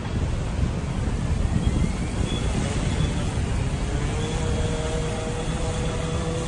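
Gannet Pro+ fishing quadcopter's propellers spinning up as it lifts off under a 5 kg load, settling into a steady hum about four seconds in, over a heavy low rumble of wind and surf.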